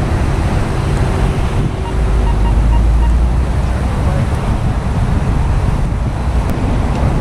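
Wind buffeting the microphone of a dropped GoPro, a steady rushing noise with a heavier low gust about two seconds in.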